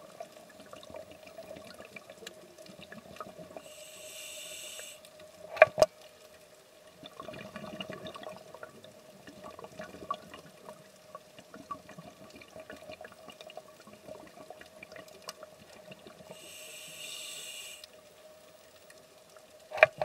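Underwater sound: a diver's scuba regulator hissing on two breaths about twelve seconds apart, over a steady hum and a constant crackle of faint clicks. Two sharp knocks stand out, about six seconds in and at the end.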